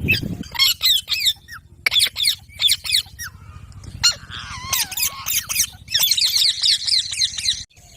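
Pet Indian ringneck parakeets squawking and chattering: a rapid run of short, shrill calls that sweep up and down in pitch, most crowded in the last few seconds.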